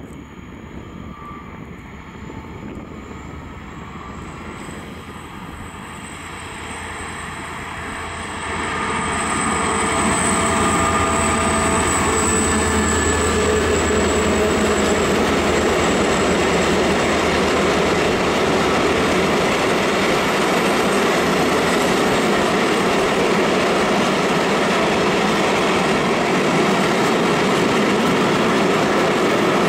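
Diesel-hauled freight train of tank wagons approaching and passing close by. Over the first ten seconds the locomotive's engine hum grows louder as it nears. Then the steady rolling rumble of the tank wagons' wheels on the rails carries on as the long train goes by.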